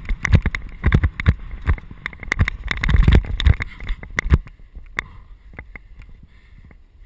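Mountain bike rattling and clattering over a rough dirt track, with many irregular knocks and jolts over a low rumble; the jolting eases after about four and a half seconds, leaving only scattered clicks.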